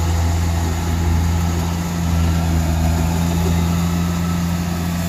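Large diesel engine running steadily at an even speed, a low drone with no revving.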